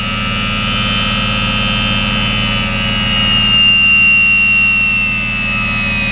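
Sherline 4400 mini lathe's motor and spindle running at high speed on its variable speed control, a steady high-pitched whine over a low hum. The whine dips slightly in pitch in the second half.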